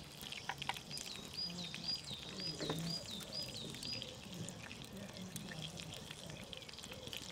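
Wood fire crackling with scattered sharp pops. Over it, a small bird sings a high down-slurred note about twice a second for a few seconds.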